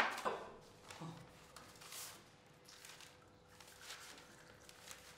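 Sheets of paper being handled and turned over, a few soft, faint rustles and crinkles, after a short sharp sound at the very start. A faint steady hum lies under it.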